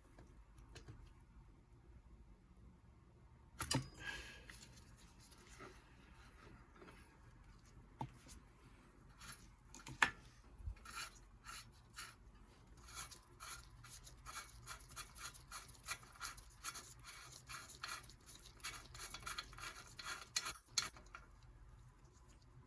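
Hand work on bicycle bottom-bracket parts: scattered light clicks and knocks of metal parts and tools, then from about 13 seconds a quick run of scraping, rubbing strokes that stops near the end.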